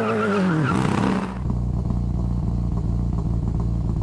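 2019 Honda Civic Si's turbocharged four-cylinder engine and exhaust coming down from a rev in the first second, then settling into a low, steady idle rumble.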